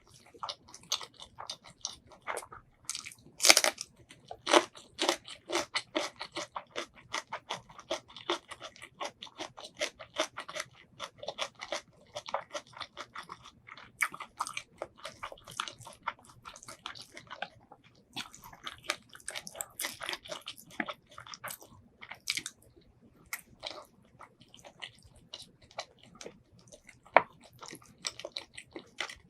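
A person chewing braised pork ribs and white rice close to the microphone, with a dense run of irregular wet mouth clicks and a few sharper snaps, the loudest about three and a half seconds in.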